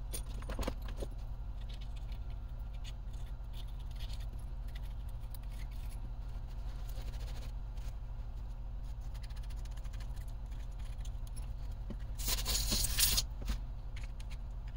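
Small plastic and metal clicks and light scraping as RC car gearbox parts (housing, gears and slipper-clutch shaft) are handled and fitted together. About twelve seconds in there is a louder scraping rustle lasting about a second. A steady low hum runs underneath.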